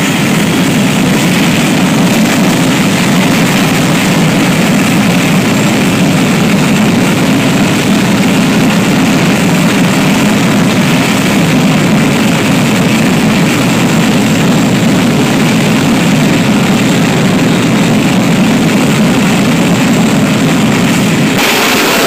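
Jet engine running steadily and loudly, a continuous rush of noise with a faint high whine that fades over the first few seconds. Near the end a brighter hiss comes in on top.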